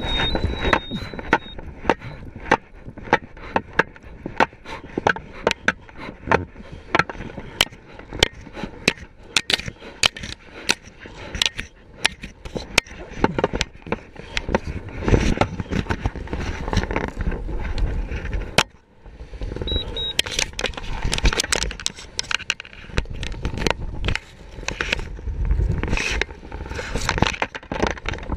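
Wind rushing and buffeting over a skydiver's helmet-camera microphone while he spins under a malfunctioning main parachute with tangled lines, with many irregular sharp cracks and flaps of the canopy fabric and a brief lull about two-thirds through.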